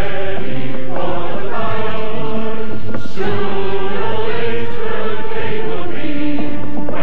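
Music with a choir chanting in long held notes, the pitch moving to a new note every second or two.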